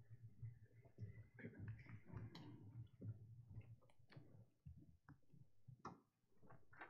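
Near silence: faint scattered clicks and small knocks over a low steady hum.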